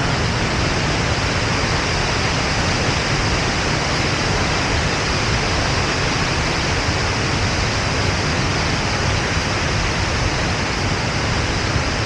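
Wide waterfall pouring over a rock ledge into a pool close by: a steady, dense rush of falling water.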